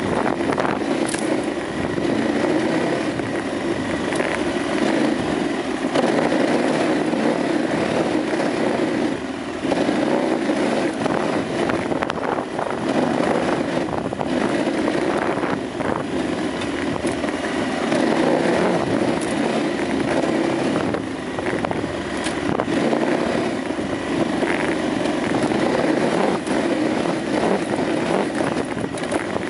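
KTM 950 Adventure motorcycle's V-twin engine running under way on a rough dirt trail, its note rising and easing with the throttle, mixed with rushing wind and occasional sharp knocks from the ride.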